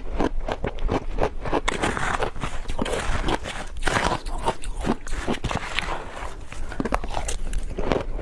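A person biting and chewing ice, with repeated irregular crisp crunches and crackles.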